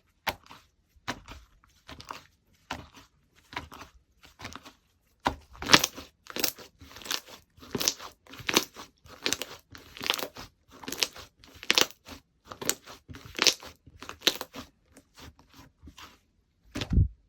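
Slime being played with by hand: a run of short clicks and crackles as it is pressed, stretched and folded, thin at first and then denser and louder from about five seconds in. A single heavier thump comes near the end.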